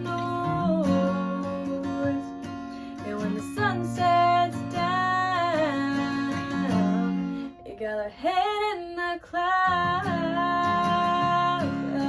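Acoustic guitar strumming, with a woman's voice singing long held notes over it, briefly dropping away about eight seconds in.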